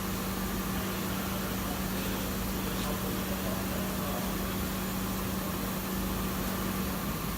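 Ball surface sanding machine's motor running with a steady low hum and a hiss over it; the hum stops near the end.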